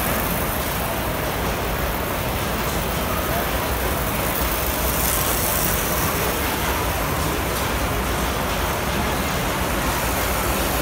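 Standard gauge tinplate model trains running on three-rail track, a steady rumble, with crowd chatter in the hall behind it.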